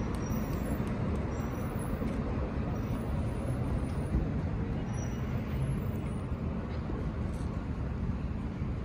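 Steady city street ambience: a constant rumble of road traffic with no distinct events standing out.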